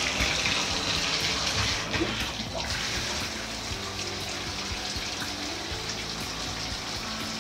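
Water spraying steadily from a handheld shower head and splashing on ceramic tile, a little quieter after about two seconds. The shower is running normally through a newly fitted Moen 1222 cartridge.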